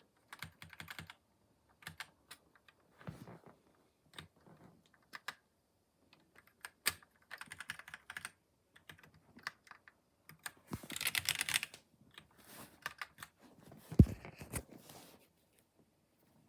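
Magegee MK Box mechanical keyboard with red linear switches being typed on: irregular runs of key clacks, with a fast flurry about eleven seconds in and one hard strike with a deeper thump about fourteen seconds in.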